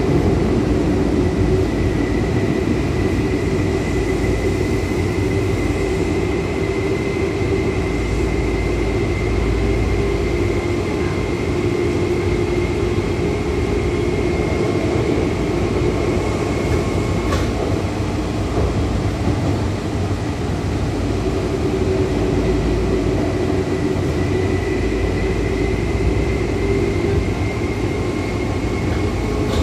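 Tokyu 8500 series electric train with Hitachi traction motors running, heard from inside the car: a steady rumble of wheels and running gear under a thin high whine. The whine slowly rises in pitch, fades away about two-thirds of the way in, and comes back rising near the end. One sharp click about 17 seconds in.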